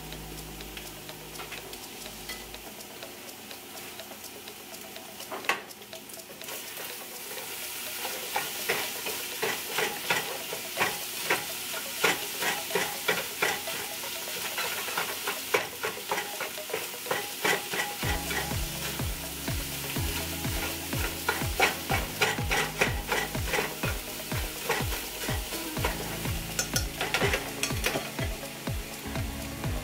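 Eggs scrambling in a hot skillet, stirred with a silicone whisk: quick scraping strokes against the pan over a light sizzle, getting busier and louder about seven seconds in.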